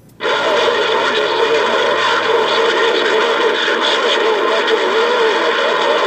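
Galaxy CB radio's speaker giving loud, steady static a moment after the operator stops transmitting. Faint, warbling voices of distant stations sit under the hiss.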